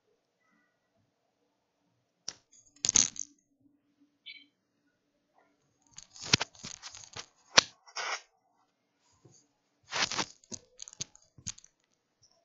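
Sharp crackling and clicking noise coming through a video-call microphone, in three short clusters with quiet gaps between.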